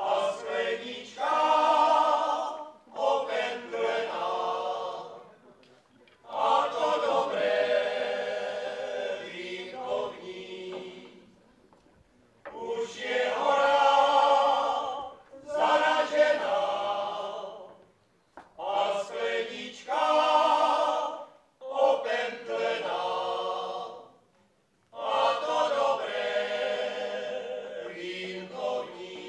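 Male choir singing a cappella, in phrases of a few seconds each with short breaks between them.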